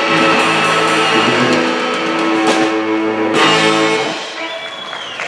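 Live rock trio of electric guitar, bass guitar and drum kit playing a held closing chord with two cymbal crashes, the band ringing out and dying away about four seconds in as the song ends.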